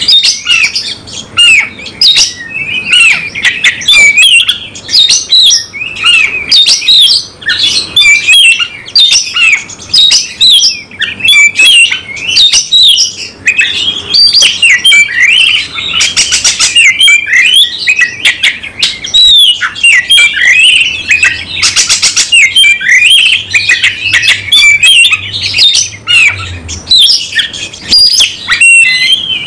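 Caged Oriental magpie-robin (kacer) singing nonstop in a fast, loud run of varied whistles and chirps, broken twice past the middle by harsh rasping notes. It is the bird's aggressive, fighting-mood song with its full repertoire of mimicked phrases.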